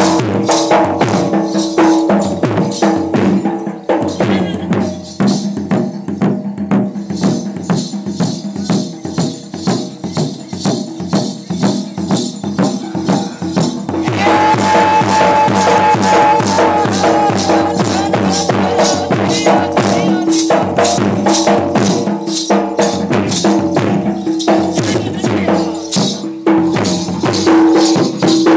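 Danda nacha folk dance music: a large decorated barrel drum (dhol) beaten with a stick plays a fast, dense rhythm over a sustained pitched tone from another instrument. About halfway through, the music gets louder and fuller.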